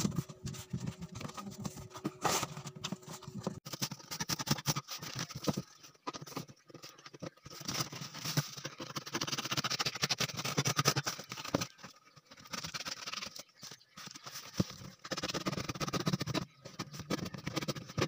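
Corrugated cardboard boxes being handled close up: flaps bent and folded, with irregular scraping, rustling and knocking of the cardboard. A faint steady hum stops about three and a half seconds in.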